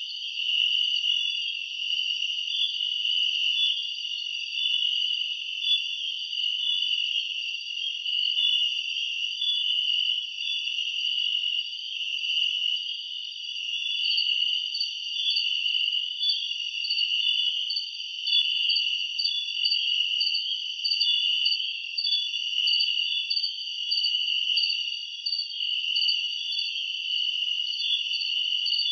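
Night chorus of crickets and other insects, a shrill steady trilling in several high pitches. A repeated chirp becomes more prominent about halfway through.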